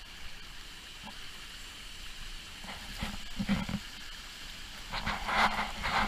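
Shallow stream rushing over rocks, a steady hiss of water, with two louder rough bursts of noise about three and five seconds in.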